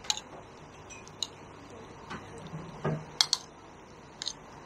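Metal spoon clinking and scraping against a ceramic plate while stirring a saucy eel dish: a scattered, irregular series of light clicks.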